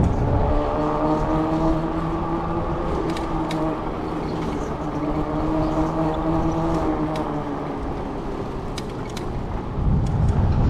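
Riding noise on an e-bike climbing a hill under pedalling: a steady droning hum with wind rumbling on the microphone near the start and again near the end, and a few light clicks.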